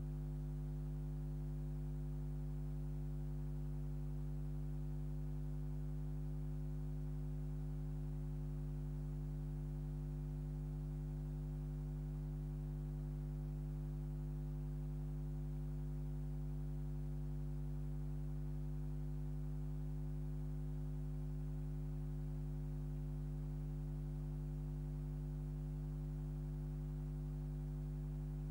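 Steady electrical hum made of several fixed tones, unchanging throughout, with no other sound over it.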